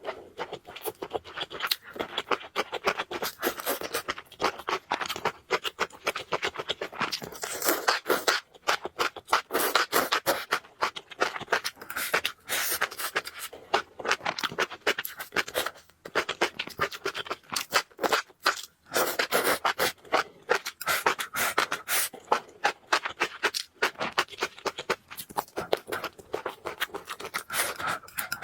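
Close-miked eating of noodles: quick, irregular wet mouth clicks of chewing and slurping, going on with only brief pauses.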